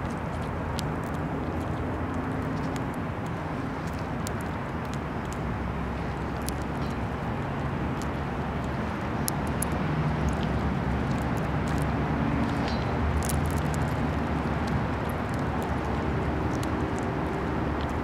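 Steady outdoor background noise, a low rumble and hiss with scattered faint high ticks, a little louder from about ten seconds in.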